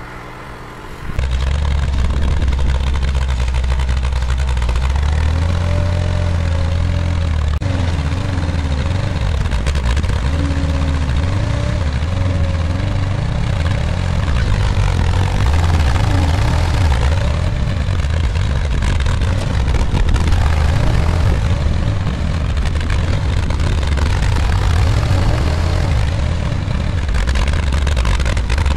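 Engine of an old backhoe loader running hard under load while the front bucket, fitted with a railroad-spike tooth bar, digs into the dirt. The engine comes in suddenly about a second in, then holds a steady low drone that rises and falls a little with the load.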